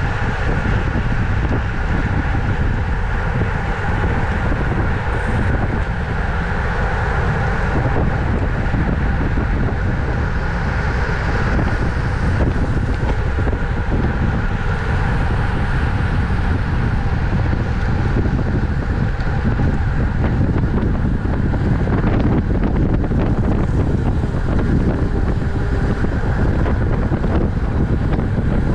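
Steady wind rushing over the microphone of a camera on a road-racing bicycle at speed, with a constant rumble underneath and a few faint steady tones.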